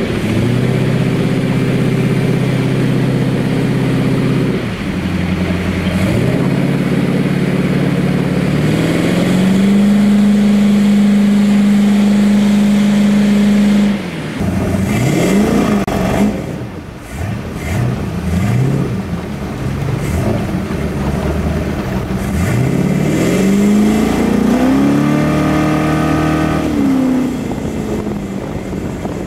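The 455 Oldsmobile V8 of a 1976 Sidewinder jet boat running under way, loud and steady. The engine note holds high, drops abruptly about halfway through, then revs up and down several times before climbing and holding again near the end.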